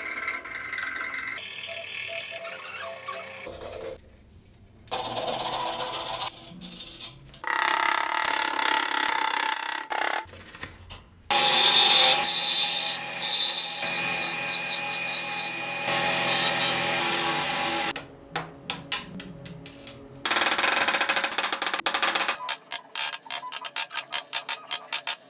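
Hand woodworking in several short takes. First a file scrapes and rasps a wooden part held in a vise. Then a wood lathe runs while a turning chisel cuts a spinning blank. Near the end a carving gouge makes rapid, short, repeated cuts.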